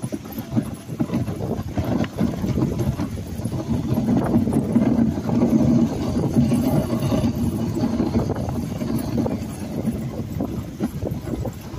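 Wooden dog sled running over snow behind a husky team: a continuous scraping rumble from the runners, broken by many small rattling knocks from the sled. It grows louder from about four to seven seconds in.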